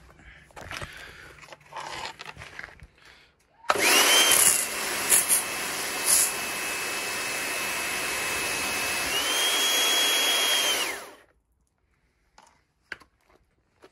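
Kärcher electric pressure washer starting about four seconds in: a motor whine over the hiss of the water jet hitting paving, the whine stepping up in pitch shortly before it cuts off suddenly about seven seconds later. The machine is being test-run after a repair to its leaking lance connection.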